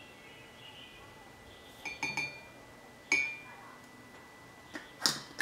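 A metal spoon clinking against a glass coffee jar, twice about two seconds in and once more sharply a second later, each with a short ring. The glass jar is then set down on a wooden table with a knock near the end.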